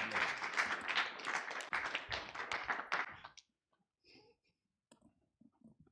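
Congregation applauding, a dense patter of hand claps that dies away about three and a half seconds in, leaving only a few faint knocks.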